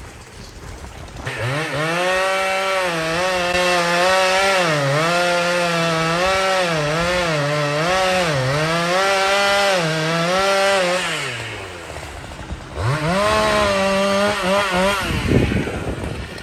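Chainsaw revving to full throttle and cutting into the trunk of a large white pine, its pitch sagging and recovering over and over as the chain loads up in the cut. It drops back to idle about eleven seconds in, revs up again briefly, and a sharp knock follows near the end.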